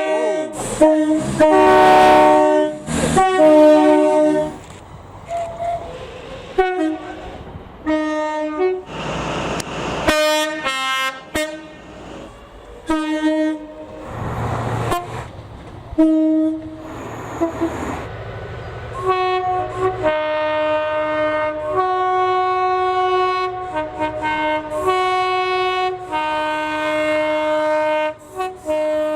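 Train horns sounding a series of two-tone blasts that alternate between a higher and a lower note, with several sounding in quick succession near the end. Between the blasts come short stretches of passing-train running noise.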